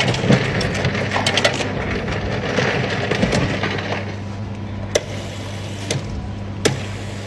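Soda fountain pouring carbonated soft drinks into a paper cup: a steady noisy pour, busiest in the first half, over a low steady hum. There is a patter of clicks at the start and two sharp clicks in the second half.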